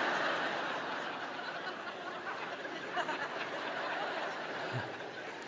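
Large audience laughing, loudest at the start and slowly dying away.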